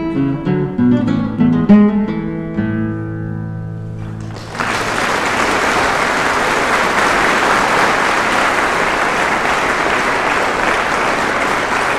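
Classical guitar playing the closing bars of a fast movement, ending on a held final chord that rings and fades. About four and a half seconds in, an audience breaks into steady applause that continues.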